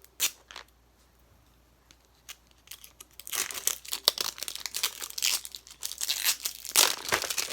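A single sharp click, then from about three seconds in, a surprise toy ball's plastic shrink-wrap being torn open by its tear strip, crinkling and tearing continuously.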